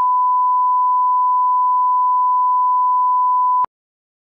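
Broadcast line-up test tone, the steady single-pitched reference beep played with colour bars. It holds one unwavering pitch and then cuts off suddenly near the end, leaving dead silence.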